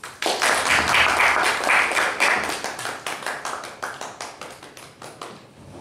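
Audience applauding. It starts suddenly, is loudest over the first couple of seconds, then thins to scattered claps and dies away near the end.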